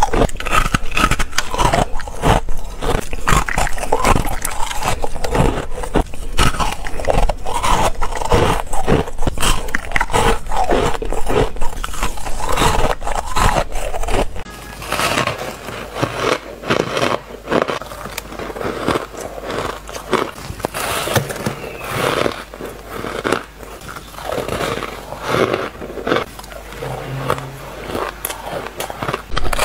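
Close-miked crunching and chewing of crushed shaved ice, dense crackling bites one after another. About halfway through, the crunching becomes quieter and sparser.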